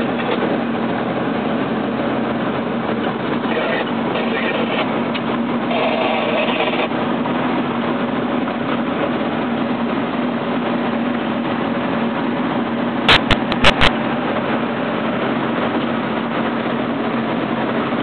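Western Star logging truck's diesel engine running steadily under way on a gravel road, heard from inside the cab with the tyre and road noise. A quick run of four sharp knocks comes a little past the middle.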